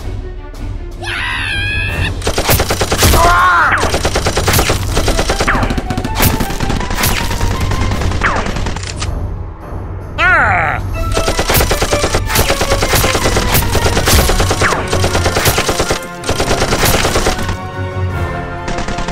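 Rapid automatic gunfire in long bursts, breaking off briefly about ten seconds in, over background music.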